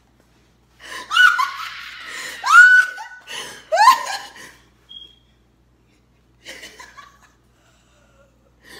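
Girls laughing hard in loud, high-pitched bursts with swooping pitch, lasting about three and a half seconds from a second in, followed by a few faint laughs.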